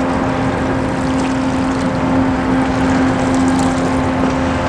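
Boat engine running steadily: a constant hum over an even rushing of water and wind.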